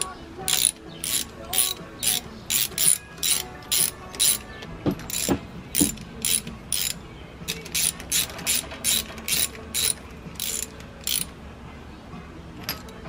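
Socket ratchet clicking in short back-and-forth strokes, about two to three a second, as spark plugs are screwed back into a Ford flathead V8's cylinder heads; the clicking stops shortly before the end.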